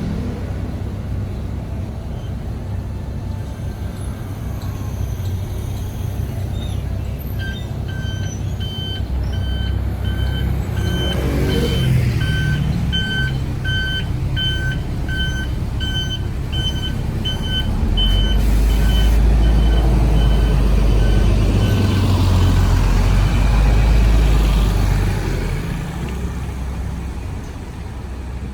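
City bus engine running as the bus pulls out, with a reversing alarm beeping steadily, about one and a half beeps a second, from about seven seconds in until about twenty-two seconds in. The engine rumble grows loud in the later part as the bus drives off, then fades near the end.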